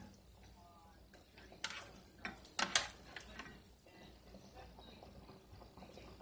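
Serving utensil scraping and clinking against a frying pan and a glass bowl as cooked vegetables are scooped out: a few sharp clinks in the middle, the loudest about two and a half seconds in.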